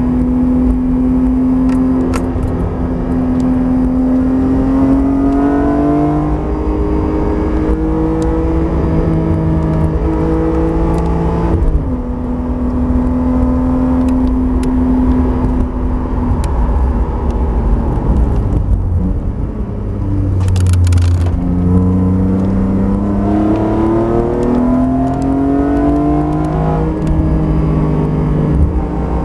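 BMW E46 M3 CSL's 3.2-litre straight-six engine heard from inside the car, pulling hard on track. Its note climbs through the revs and drops with an upshift about twelve seconds in. It falls away around nineteen seconds, then climbs again through several quick rises toward the end.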